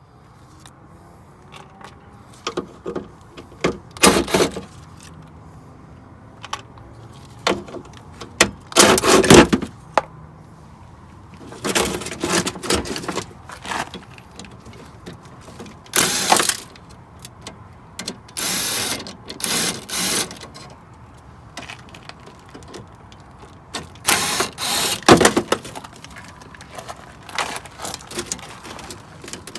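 Work on a car door to remove a window regulator: irregular metallic clatter and rattling, with short runs of a cordless power tool loosening bolts. The longest run comes about two-thirds of the way in.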